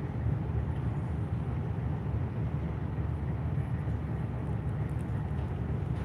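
Ship's engine running, a steady low rumble with no change in pitch or level.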